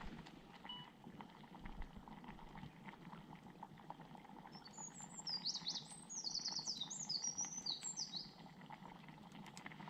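A songbird singing one phrase of quick, high notes that each fall in pitch, starting about halfway through and lasting nearly four seconds, over faint scattered clicks.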